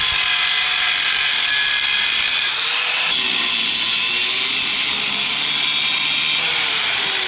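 A power tool running steadily with a high whine, changing abruptly about three seconds in and again near the end.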